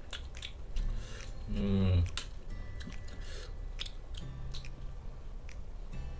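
Close-miked eating of fried chicken: the meat torn apart by hand and chewed, with scattered short clicks and smacks of the mouth. A short hummed voice sound comes about one and a half seconds in.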